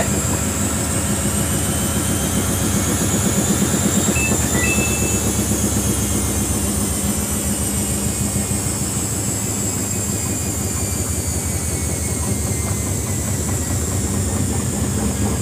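Samsung front-loading washing machine spinning its drum in test mode: the motor's whine rises in pitch as the drum speeds up and then falls as it slows, over a steady rhythmic churning. Two short high tones sound about four seconds in.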